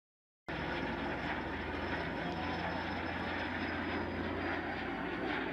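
Aircraft engine running steadily with a faint high whine over its noise, starting abruptly about half a second in.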